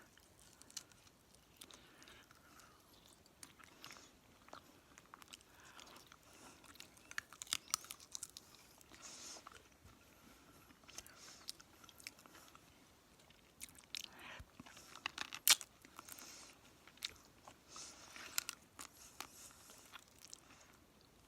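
Close-miked chewing and wet mouth sounds: irregular smacks and sharp clicks, the loudest about two-thirds of the way through.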